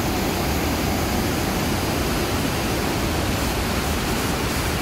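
Water released through a dam's gates, rushing and churning as whitewater in the river below: a steady rush of water.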